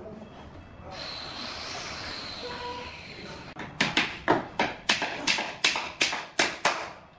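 Hammer striking a nail into a bamboo skirting board: about ten quick, sharp blows, roughly three a second, starting a little after the middle. A few seconds of hissing noise come before the blows.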